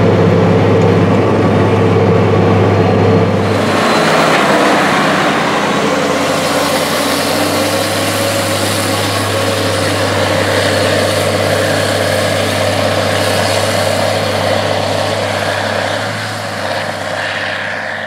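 AGCO White 6175 tractor's Cummins 505-cubic-inch diesel pulling a round baler, a steady low drone heard inside the cab. About four seconds in, the sound changes to the tractor and John Deere 560M round baler working across the field, heard from outside as a broader, noisier mechanical rush. It fades a little near the end.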